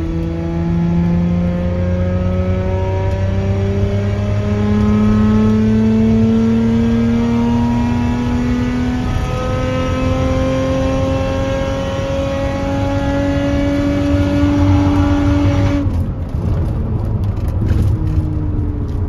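Hyundai Coupe's engine running under load, its note climbing slowly and steadily in pitch as the car accelerates. About sixteen seconds in the engine note falls away abruptly, leaving a rougher, noisier car sound.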